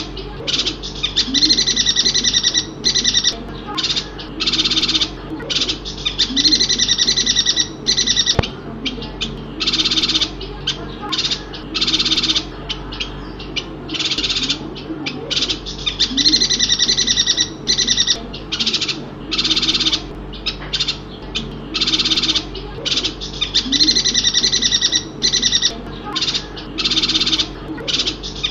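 Yuhina from Borneo giving high, dense chattering calls in short bursts of about half a second to a second, repeated roughly every second with brief pauses.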